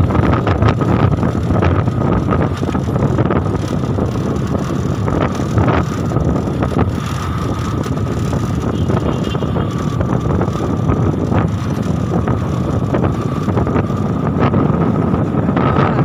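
Motorcycle riding on a rough dirt road: wind buffeting the microphone over the engine's steady running, with a thin steady whine throughout.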